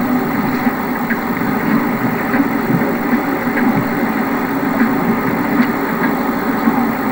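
Steam engine running: a steady, loud rumble and rush with faint scattered ticks.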